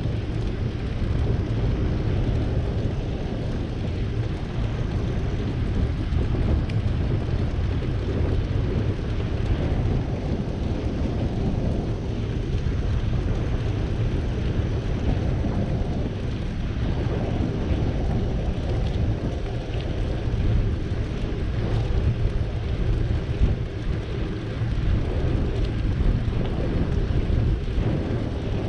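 Ride noise from a moving bicycle: wind buffeting the microphone and tyre rumble, a steady low rumble with no pauses.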